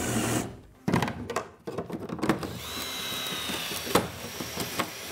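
Cordless drill with a spot weld drill bit cutting into a car's sheet-steel floor pan, a steady grinding whine of bit on metal. Several sharp metal knocks are mixed in as a bar is worked into the seam to separate the panels.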